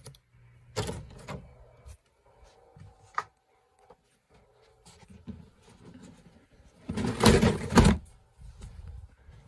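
Handling noise from a handheld phone camera being carried through rooms: scattered soft knocks and brushing, then a loud scraping rustle lasting about a second near the end.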